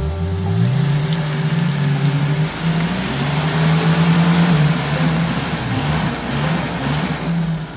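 UAZ off-roader's engine revving hard as it pushes through deep mud: the revs climb sharply at the start, then rise and dip again and again under load, over a rush of the wheels churning the mud.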